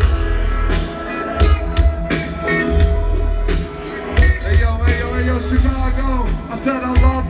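Live electronic hip-hop jam played loud through a concert sound system: heavy pulsing bass, steady drum hits and sliding synth lines.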